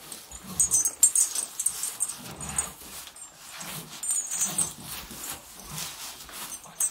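Calves nuzzling and licking at a man's trouser legs: an irregular run of short snuffling breaths, wet licks and rubbing on cloth, with straw rustling underfoot.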